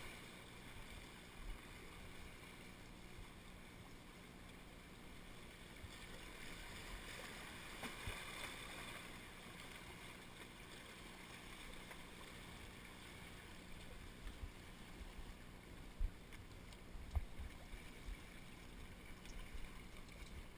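Small waves washing and swirling around shoreline rocks, with a louder surge in the middle, and a couple of sharp knocks near the end.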